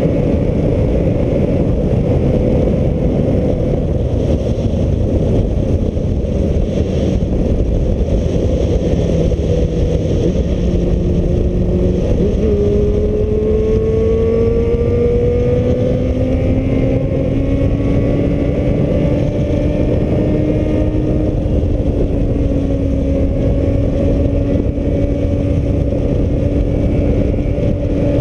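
Heavy wind buffeting on the camera microphone of a riding motorcycle, over the Suzuki Bandit's inline-four engine humming along. The engine note shifts about ten to twelve seconds in, then climbs slowly as the bike gathers speed, eases back a little just past twenty seconds and holds steady.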